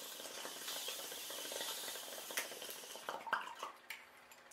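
Glass water bong bubbling with a steady hiss as a hit of cannabis is drawn through it, fading after about three seconds into a few short faint sounds.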